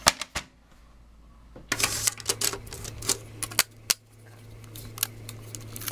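Irregular clicks and taps of a disassembled CD/DVD drive's metal chassis and plastic parts being handled. From about two seconds in, the clicks come thick over a low steady hum.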